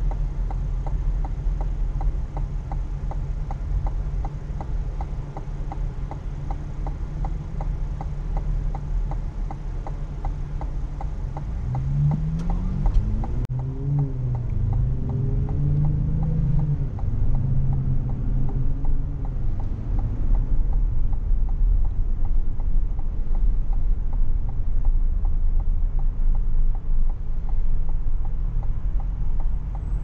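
Turn-signal indicator ticking steadily inside the cabin of a 2021 Cadillac Escalade ESV, over the low hum of the idling engine while stopped. About twelve seconds in, the engine note rises in pitch as the SUV pulls away, then settles into steady engine and road noise.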